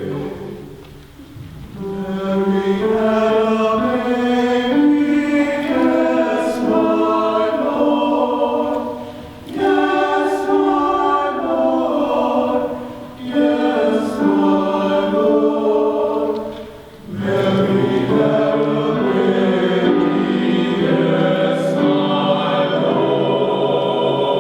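Men's chorus singing held chords in several voices, in phrases broken by short pauses.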